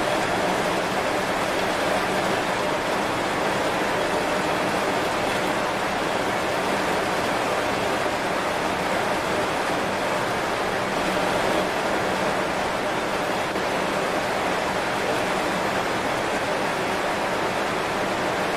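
Heavy rain falling steadily on banana leaves, an even hiss with no separate drops standing out.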